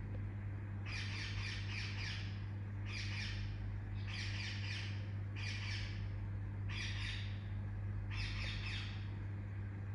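Young Indian ringneck parakeet giving short bouts of rapid, scratchy chirps, about seven bouts each under a second long, with a steady low hum underneath.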